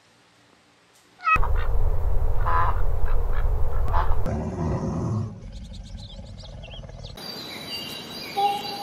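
Ducks quacking, starting suddenly about a second in over a low rumble, then giving way to softer, high short chirps in the last few seconds.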